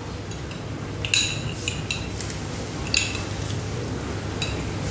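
A spoon clinking against a small glass jar as oil is spooned out of it, several light, sharp clinks at uneven intervals.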